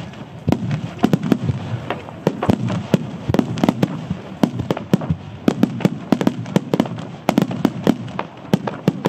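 Japanese starmine fireworks barrage: aerial shells launching and bursting in rapid succession, a dense string of sharp bangs several a second.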